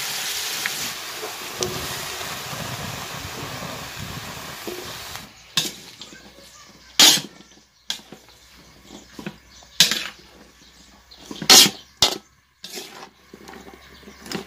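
Freshly added string beans and squash sizzling in a hot aluminium wok, the sizzle slowly fading and then stopping about five seconds in. After that a metal utensil clanks and scrapes against the wok about a dozen times as the vegetables are stirred.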